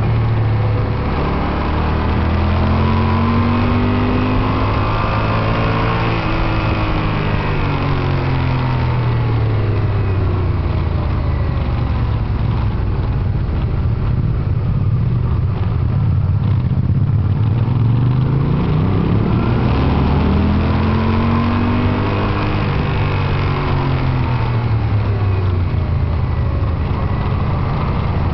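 Yamaha TDM900's parallel-twin engine under the rider, pulling hard on track, its revs climbing and falling with the throttle and gears. It is lowest around the middle and climbs again a few seconds later, over a steady rush of wind noise.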